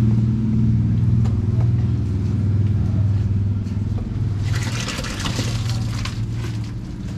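A small engine running steadily, with scattered light knocks and clatter over it; about four and a half seconds in, a rough hissing rush joins it.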